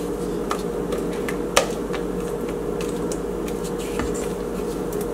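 Spatula scraping batter from the sides of a stainless-steel stand-mixer bowl, with a few light clicks as it knocks the bowl, over a steady mechanical hum.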